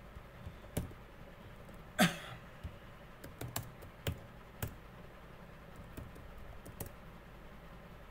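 Computer keyboard and mouse clicks as folders are opened and a command is typed: scattered single key and button clicks, with one louder knock about two seconds in.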